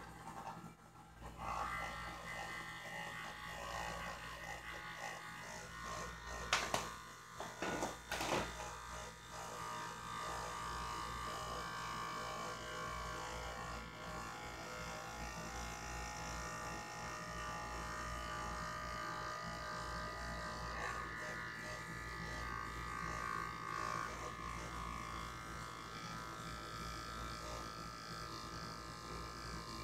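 Small electric motor spinning a gyroscope's flywheel with a steady whine, broken by a few loud knocks about a quarter of the way through.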